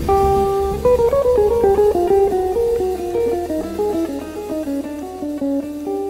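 Jazz electric guitar playing a quick run of single notes that winds mostly downward, settling on a held chord near the end. A low bass tone sounds underneath through the first half.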